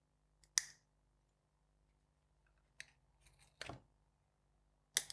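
Sharp clicks and snaps of tools prying at an iPhone XS Max smart battery case. There are about four separate snaps, the loudest about half a second in and right at the end, with a duller knock in the middle.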